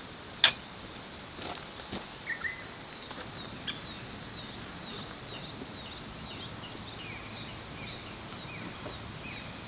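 Outdoor woodland ambience with birds chirping repeatedly, joined by a sharp click about half a second in and a few lighter knocks over the next few seconds.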